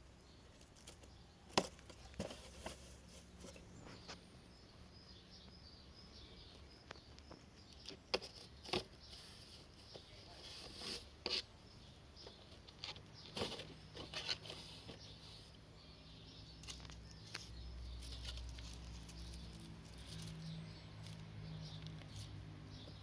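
Faint scratching and rustling on a cardboard box as a kitten plays with it, with a handful of sharp knocks and taps scattered through. A low steady hum comes in about halfway.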